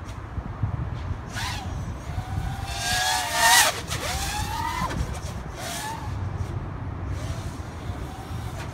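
Racing quadcopter's 2206 brushless motors spinning three-blade 5050 props, a whine that glides up and down in pitch as the throttle changes. It is loudest in a close pass a little past three seconds in.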